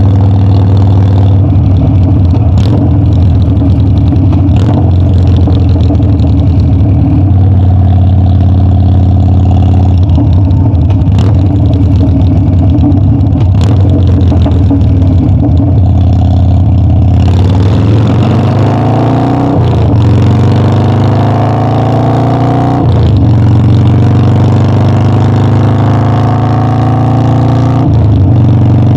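Harley-Davidson Dyna's air-cooled V-twin running at a steady cruise. About two-thirds of the way through it accelerates: the engine note climbs, drops at each upshift, and climbs again through three gear changes.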